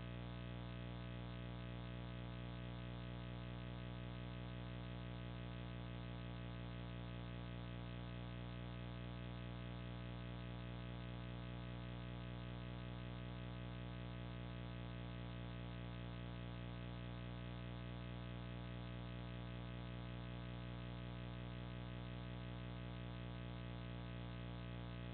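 Steady electrical hum and buzz with many overtones, unchanging, typical of a trail camera's own electronic noise.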